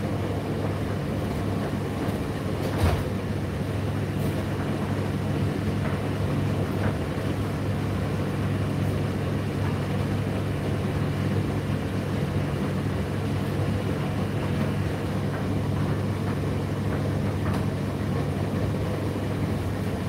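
Indesit IDC8T3 8 kg condenser tumble dryer running, a steady hum of the turning drum and fan with a low drone. A single light knock sounds about three seconds in.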